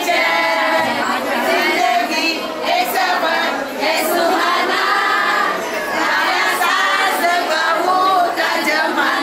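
A group of voices singing together, loose and overlapping, with crowd noise.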